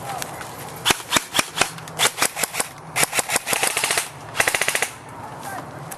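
Airsoft guns firing: a few single shots about a second in, then short bursts, and a quick full-auto string of about 15 to 16 sharp snaps a second a little past the middle.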